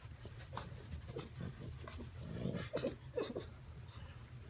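A towel being rubbed briskly over a French bulldog's coat, in repeated short scratchy strokes. The dog makes a few short low vocal sounds about halfway through.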